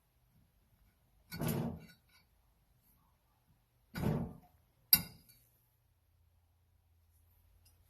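Two short clatters and then a sharp click, the click the loudest of the three, as brake hardware is handled on a workbench.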